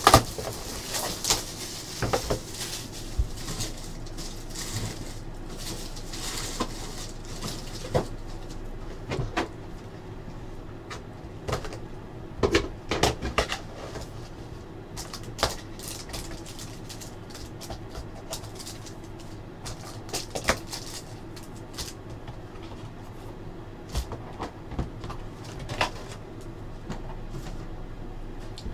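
Shrink-wrap crinkling and tearing on a cardboard trading card box, then the box and the cards inside being handled, with scattered clicks and knocks.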